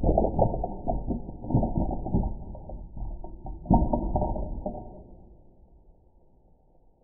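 Wooden spring mousetrap knocking and clattering on a desk after snapping shut, heard slowed down and pitched low: a string of dull knocks that dies away about five seconds in.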